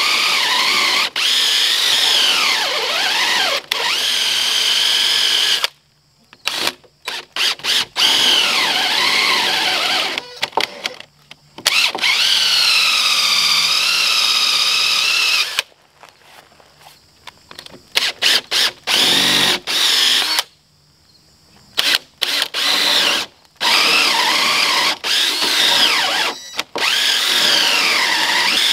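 Cordless DeWalt drill turning a 1¼-inch Forstner bit into a 6x6 wooden sill plate, boring a 3-inch-deep countersink for an anchor bolt. The motor's whine bends up and down in pitch as the bit loads up in the wood. It runs in long stretches, with several short stops and quick trigger bursts between them.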